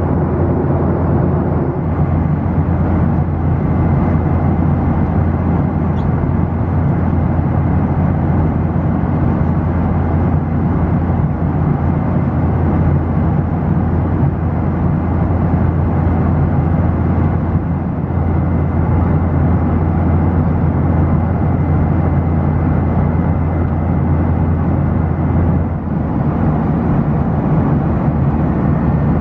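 Steady cabin drone of a Boeing 737-900ER in cruise, its CFM56-7B engines and airflow blending into one deep rushing noise, with a faint high steady tone over it. The tone shifts slightly about two seconds in and again near the end.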